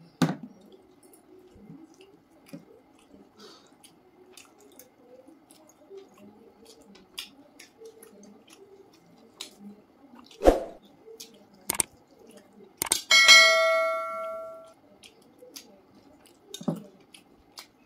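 Eating rice and curry by hand: soft squelching and chewing, with a few sharp knocks. About two-thirds of the way through comes one bright ringing clink that dies away over about a second and a half.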